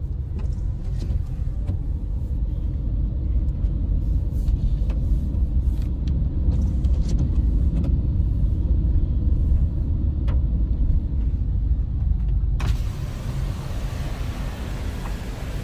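Low rumble of a moving car heard from inside the cabin, with scattered light clicks and rattles. Near the end a steady hiss sets in suddenly and carries on.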